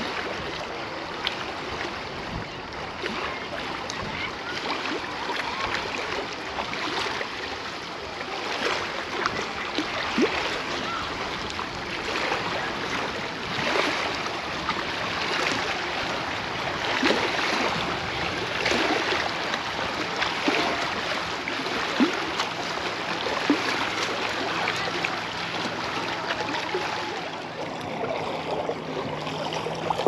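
Small sea waves splashing and washing onto a beach, swelling and ebbing every couple of seconds with little crackling splashes. A low steady hum is heard at the start and again near the end.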